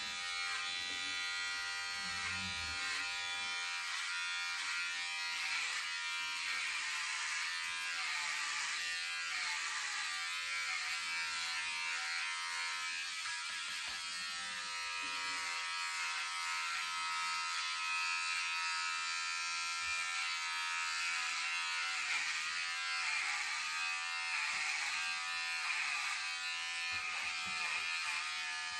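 Battery-powered electric hair clipper buzzing steadily as it cuts a man's hair, its pitch sagging briefly several times as the blades bog down in the hair.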